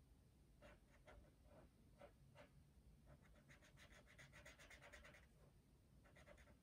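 Faint scratching of a felt-tip marker colouring on paper: a few separate strokes, then a quick back-and-forth scribble of about eight strokes a second for about two seconds, then a few more strokes near the end.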